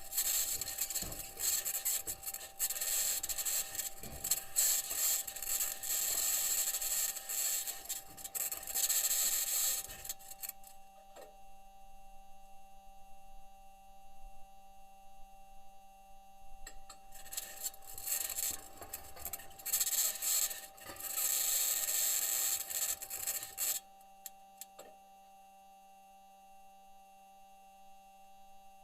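Perseverance rover's aluminium wheels grinding and scraping over rocky ground on Mars, recorded by its onboard microphone: two long spells of loud rasping, the first lasting about ten seconds and the second starting about halfway through, with quieter crackles between them. A steady faint hum and tone run underneath, and near the end only the hum is left.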